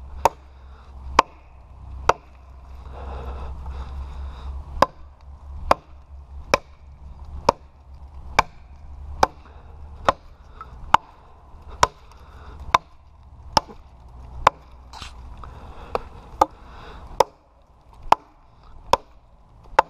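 Estwing camper's axe chopping into a log at alternating angles to cut a V-notch, the kind of wedge cut used to fell a tree. Sharp, steady blows come about once a second, with one short pause early in the run.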